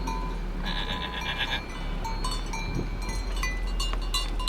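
Bells hung on a herd of goats clanking and jangling irregularly as the animals move about, with a dense burst of ringing about a second in.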